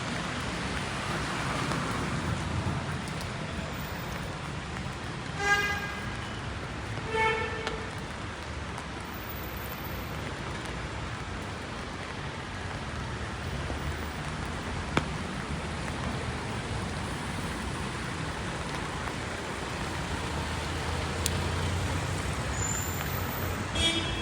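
Rain falling on a city street with road traffic running by. Two short horn toots about five and seven seconds in, and another right at the end.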